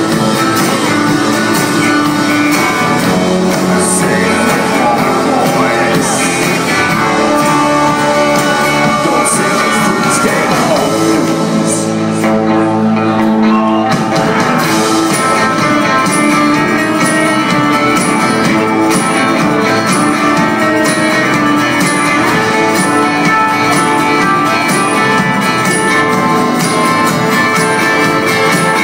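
Live band playing loud through a PA, with several voices singing together over acoustic guitar, keyboard and drums. The sound is captured by a phone microphone out in the crowd. About twelve seconds in, the beat drops away briefly under a held chord, then the full band comes back in.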